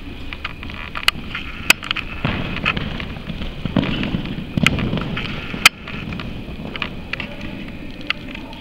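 Handling and movement noise from a camera carried by a rider on a moving horse: irregular sharp clicks and knocks over a low rumble that swells in the middle.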